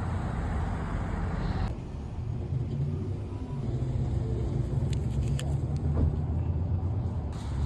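Steady low rumble of a running vehicle, with a hiss in the first couple of seconds and a few faint clicks later on.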